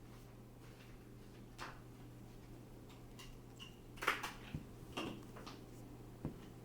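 Small clicks, taps and rustles of hands handling a clip-on phone lens kit and its packaging, with a cluster of sharper clicks about four to five seconds in and a single knock near the end, over a steady low hum.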